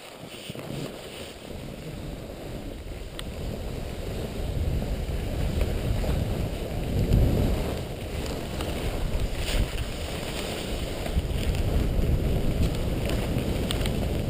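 Wind rumbling on the microphone of a moving snowboarder, growing louder over the first few seconds as speed builds and then running steadily.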